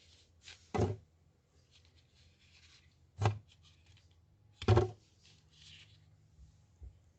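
Three short knocks, about a second in, past three seconds and near five seconds, with soft rustling between them over a steady low hum.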